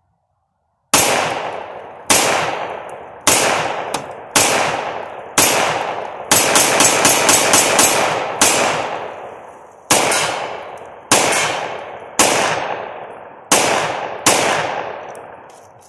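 Polymer80 PF940v2 9mm pistol firing a magazine of 115-grain ammunition as a function check of its reworked trigger bar and cruciform-to-striker-lug engagement. Single shots come about a second apart, then a fast string of about ten quick shots in the middle, then single shots again until it runs empty.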